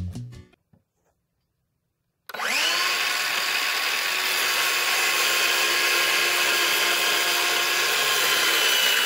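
DeWalt cordless circular saw starting about two seconds in, its whine rising as the blade comes up to speed, then running steadily as it cuts through a wooden board.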